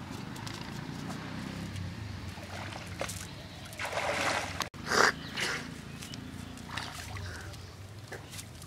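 Wet cast net rustling and scuffing as it is handled on grassy ground, with a few louder noisy scuffs around four to five seconds in.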